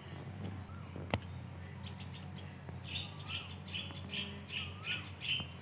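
A bird calling in a quick run of short repeated chirps, about four a second, starting about three seconds in, over a steady low hum. A single sharp click about a second in.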